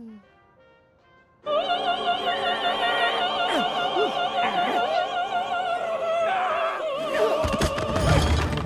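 Operatic singing voice with a wide vibrato over orchestral accompaniment, coming in suddenly about a second and a half in and holding long notes. Heavy low thuds break in near the end.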